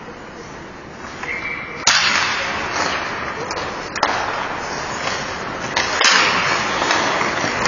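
Ice hockey play on the rink: three sudden sharp cracks, about two seconds apart, each followed by a couple of seconds of harsh scraping noise like skate blades on ice.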